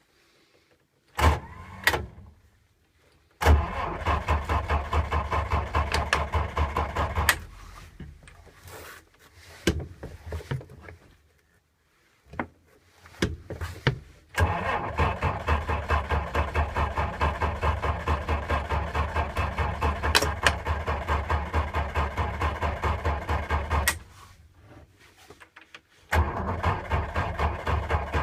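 A 6-volt starter cranking an engine in three long attempts, a fast even chug, without it catching: a hard start. Two short clicks come before the first attempt.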